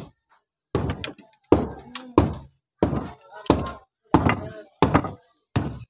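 Hammer blows struck in a steady rhythm, about eight strikes roughly two-thirds of a second apart, each ringing briefly after the hit.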